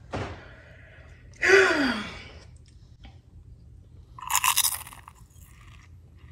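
A woman biting into a soft cinnamon roll and chewing. Her short vocal sound falls in pitch about a second and a half in, and a brief noisy mouth sound comes with the bite about four seconds in.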